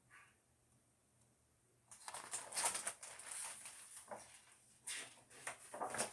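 Rustling and scraping handling noise from a picture book being moved close to the microphone. It starts about two seconds in after a near-quiet pause and goes on unevenly, with several louder scuffs.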